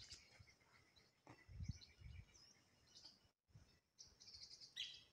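Faint birdsong: scattered short high chirps over a quiet background, with a soft low thump about a second and a half in.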